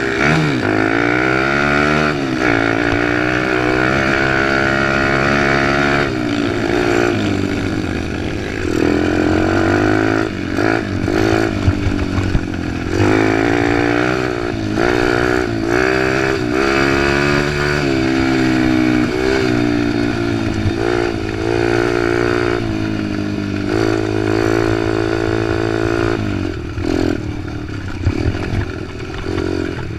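Single-cylinder dirt bike engine heard from on board under race riding, revving up, shifting and dropping back again and again as the rider works the throttle through the corners.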